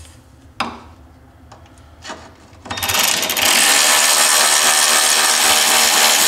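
Brushed Milwaukee M12 cordless 3/8-inch ratchet backing out a bumper bolt. A couple of light clicks come first; then, about three seconds in, the ratchet's motor starts and runs loud and steady.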